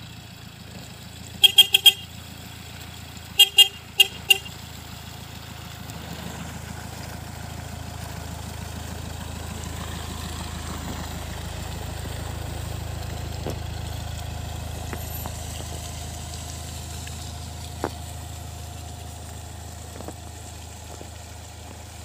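Karsan Jest+ minibus sounding its horn in short toots, three and then four, as it approaches. Its engine then rises to its loudest as it passes close by on the slushy road and fades as it drives away.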